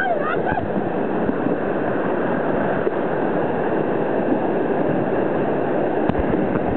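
Rushing, splashing water of shallow river rapids around a kayak, a steady noise, with a single sharp knock near the end.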